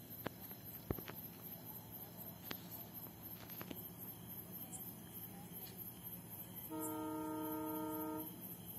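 Locomotive horn of an approaching train, heard at a distance: one steady blast of about a second and a half near the end. Insects chirp faintly and evenly underneath.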